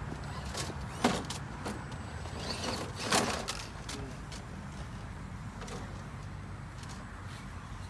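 Vaterra Ascender RC crawler truck working over rocks: a few sharp knocks and clatters as it bumps the rocks, the loudest about a second in and just after three seconds, over a low steady rumble.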